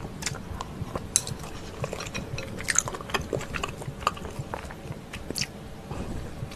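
Close-miked chewing of a mouthful of creamy pasta, with soft, irregular mouth clicks and smacks.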